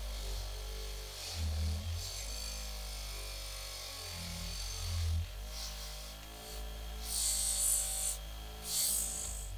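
Bench grinder running steadily with a wire wheel, scrubbing rust off steel bayonet parts held against it. Bursts of high, hissing scraping come whenever a piece is pressed to the wheel, loudest near the end.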